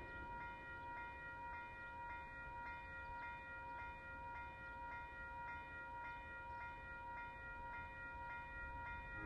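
Railway level crossing warning bell ringing at a steady beat of a little over two strokes a second, over a low rumble.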